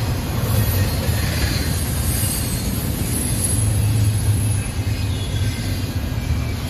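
Freight train's intermodal container cars rolling slowly past at close range: a steady low rumble of steel wheels on rail, with a thin high wheel squeal in the middle.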